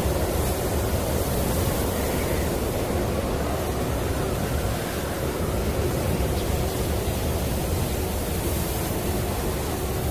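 Snowstorm wind blowing steadily: a dense, even rushing noise, heaviest in the low end, that does not rise or fall.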